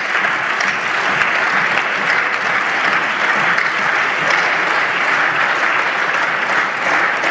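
Sustained applause: many people clapping steadily, holding at an even level throughout.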